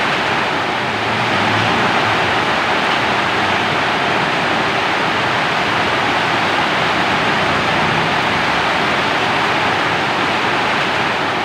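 Steady heavy rainfall, an even unbroken hiss.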